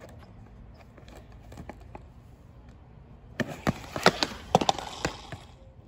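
A bailed skateboard trick: a small plastic cruiser skateboard clatters onto the asphalt while the rider lands on his hands and feet, giving a quick run of sharp knocks and scrapes about three and a half seconds in, after a few faint taps.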